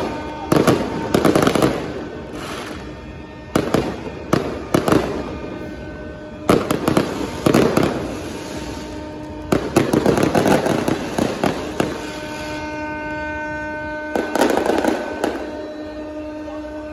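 Fireworks bursting in repeated volleys of sharp bangs and crackles, over tugboat horns sounding long, steady blasts at several pitches at once. The horns are heard on their own in the pauses between volleys, clearest near the end.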